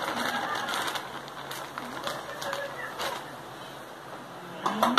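Plastic bag of tapioca starch crinkling as the starch is poured out of it into an aluminium bowl, densest in the first second, then fainter rustling as the bag is handled and set aside. A sharp knock near the end.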